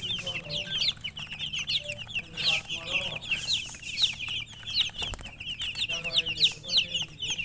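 A brood of chicks peeping without pause in many quick, high overlapping chirps, with a hen clucking lower a few times underneath.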